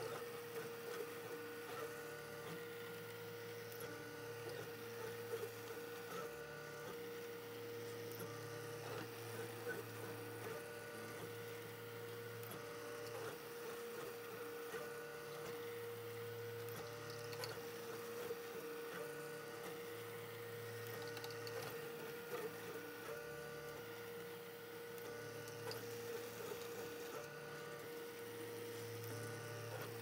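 Ultimaker 3D printer running: its stepper motors whine in tones that switch on and off and jump between a few pitches as the print head moves, over a steady hum.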